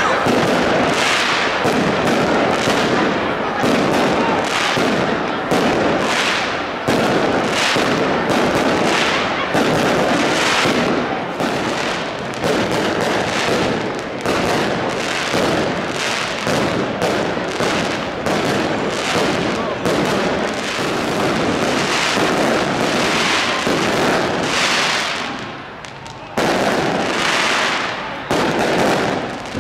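Fireworks display: a rapid, continuous string of bangs and crackles, with a brief lull about 26 seconds in before they start again.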